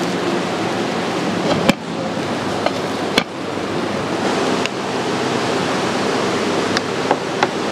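Steady rushing hiss of the flames under rows of clay cooking pots and of rice boiling in a claypot, with two abrupt changes in the noise and a few light clicks near the end.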